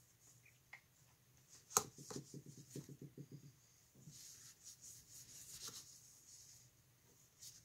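Cloth rag wiping along a Ruger M77 rifle's steel barrel and action, a soft rubbing hiss as solvent is used to clean off release wax. About two seconds in there is a sharp click, followed by a quick run of light taps.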